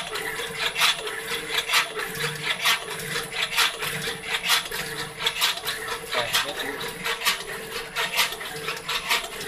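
CNC machine running a job: a steady hum with a sharp click repeating about once a second and lighter clicks in between.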